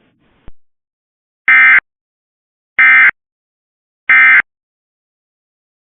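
Emergency Alert System end-of-message data bursts: three short, identical bursts of harsh two-tone digital screech about a second apart, marking the end of the alert. A single click comes just before them.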